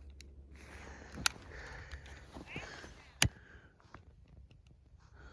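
A lighter being clicked twice, about two seconds apart, in failed tries to light a firework's wick, with faint rustling between the clicks.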